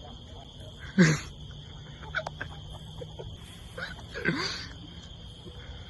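Short, loud bark-like calls: one about a second in, a fainter one near two seconds, and another around four seconds in, over a steady high hiss.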